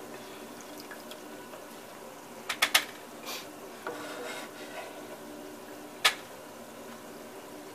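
Chicken gizzards deep-frying in a pot of hot oil, a steady sizzle and bubbling, while a black plastic spoon stirs and scoops. The spoon knocks sharply against the pot three times in quick succession about two and a half seconds in, and once more near six seconds.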